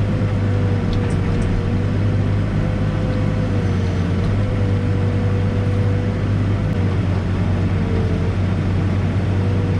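Backhoe's diesel engine running steadily under load, with a thin steady whine that wavers slightly in pitch.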